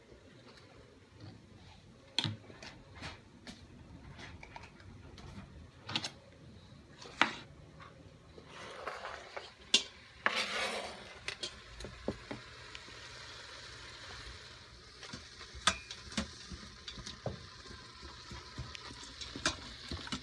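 Knife chopping a bell pepper on a plastic cutting board in separate knocks. About halfway through, the pieces are scraped into the hot stainless Instant Pot, and ground beef and peppers sizzle steadily as they sauté, with clicks of stirring against the pot.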